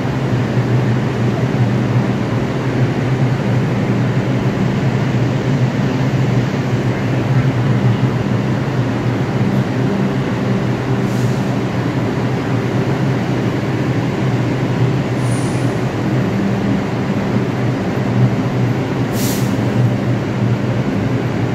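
New York City subway 2 train standing in the station with its doors open, giving off a steady, even hum. Three short hisses of air come about 11, 15 and 19 seconds in, the last the loudest.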